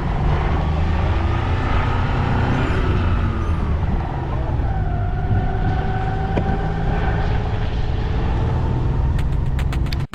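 Multicab mini-truck's engine running steadily as it drives, with a whine that rises and falls.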